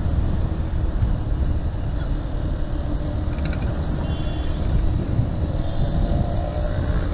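Honda Hornet 2.0 motorcycle on the move in traffic: its single-cylinder engine running steadily under a low rumble of wind on the microphone.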